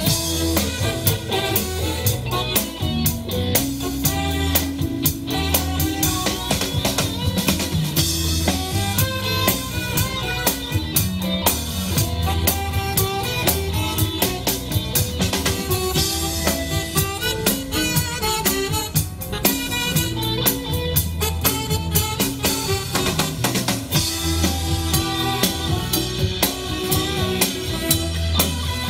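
Live band music: a drum kit keeps a steady beat under a Yamaha keyboard playing chords and melody.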